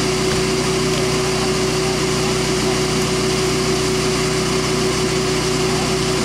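Bee vacuum running steadily, its hose drawing bees out of the colony; a constant motor whine at one steady pitch, with no change in speed.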